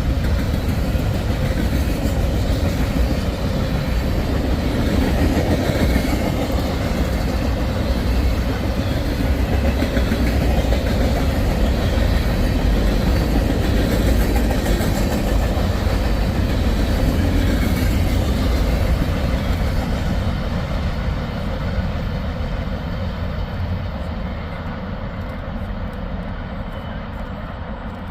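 Freight cars of a long CSX train rolling past, a steady heavy rumble with clickety-clack of wheels over rail joints. The sound fades over the last several seconds as the train draws away.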